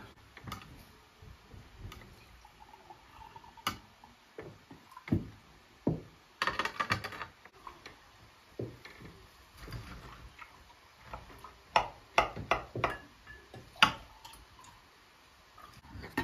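A kitchen knife and metal tongs clinking and scraping against a ceramic serving platter and plates as grilled meat is cut and served: scattered taps and clicks, a quick run of taps about six to seven seconds in, and a few sharper, louder clinks in the second half.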